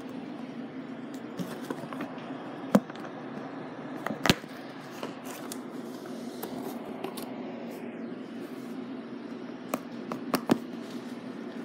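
Handling noise: a few sharp taps and clicks, the loudest about three and four seconds in and a cluster near ten seconds, over a steady low hum.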